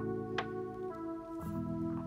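Instrumental background music with held chords that change about a second and a half in, and one sharp tick early on in the beat.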